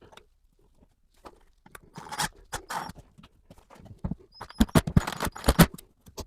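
Irregular knocks, clicks and scrapes of hand work at a drywall opening as a reinforcing piece is fitted behind the wall, getting busier about four seconds in.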